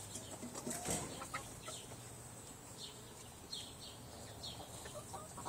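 Faint, soft clucking from a rooster: a few short, scattered calls, with a brief rustle about a second in.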